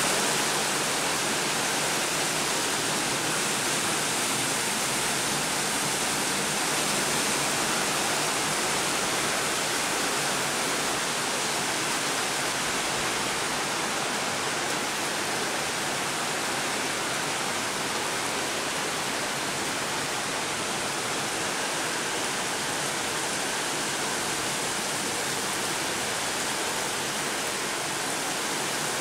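Heavy rain pouring steadily onto leafy trees and a paved yard covered in standing water: a dense, even hiss with no let-up.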